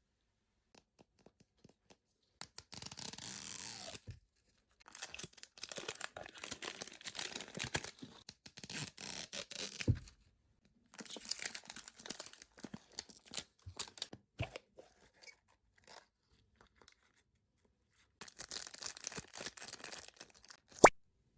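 Plastic toy packaging being torn open and crinkled by hand in several stretches with short pauses between, ending in a single sharp click or snap.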